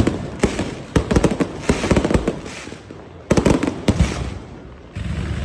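Fireworks going off: loud bangs in rapid crackling clusters, each echoing briefly, with a short lull between clusters.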